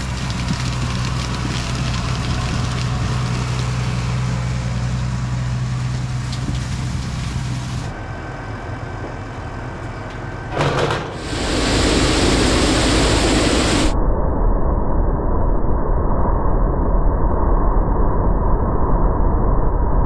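Combine engine running with a steady hum for the first several seconds, then a brief knock and a loud even rushing noise for a few seconds, followed by duller, muffled machine noise after an abrupt change.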